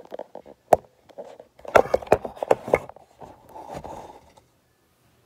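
Handling noises: a single sharp knock, then a run of clattering knocks and a brief rustle as things are moved about and set down.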